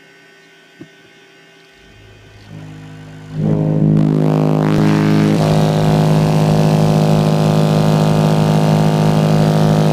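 A single Digital Designs DDZ 12-inch subwoofer, powered by a Stetsom 9K2D amplifier, playing a steady 52 Hz tone inside the car on an SPL run that peaks at 150.8 dB. The tone comes in softly about two seconds in, steps up, then jumps to full level a little after three seconds and holds there.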